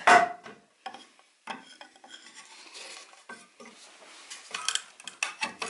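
A thin steel bar levering between two nailed pine boards to pry them apart for nail removal: metal scraping and clicking against wood and nails in irregular short knocks, starting with a loud knock and getting busier near the end.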